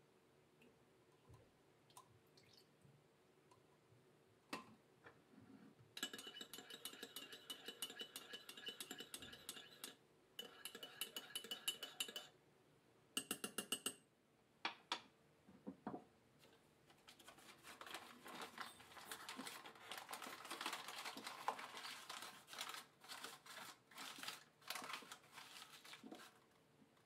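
A spoon stirring in a ceramic mug, clinking quickly and evenly against its sides with a ringing tone, in spells of a few seconds. From about halfway through the clinks give way to a denser scraping and clattering of the spoon against the mug.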